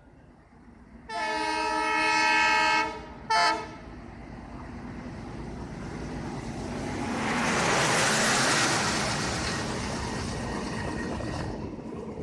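WDG3A diesel locomotive's horn gives a long blast of about two seconds and then a short one, sounded in acknowledgement. Then the train's rumble and wheel clatter build to their loudest about eight seconds in as it passes, and fade.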